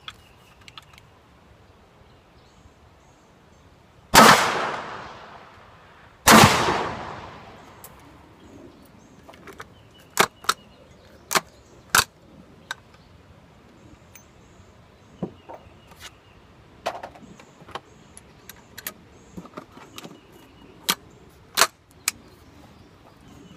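Two shots from a double-barrel 12-gauge coach gun about two seconds apart, one a 12-gauge shell and one a .357 Magnum round fired through a barrel insert, each with a long echoing decay. After them come scattered sharp metallic clicks and clinks.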